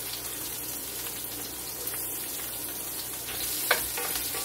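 Sliced onions sizzling in hot olive oil in a skillet, with a wooden spoon knocking against the pan once near the end.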